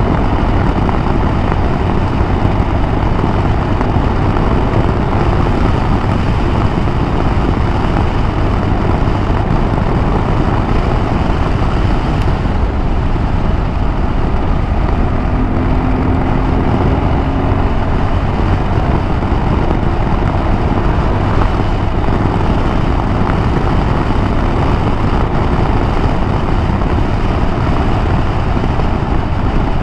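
Wind rushing over the rider's microphone, over the engine and road noise of a KTM 390 Adventure single-cylinder motorcycle cruising at a steady speed.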